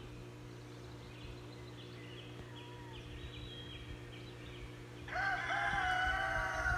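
A rooster crowing once, one long call starting about five seconds in and the loudest sound here. Before it there are faint, short, high chirps of small birds.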